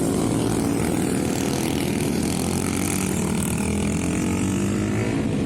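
Racing motorcycle engine running steadily through a Kimoto Superbike aftermarket exhaust, a low rumbling note that wavers slightly in pitch.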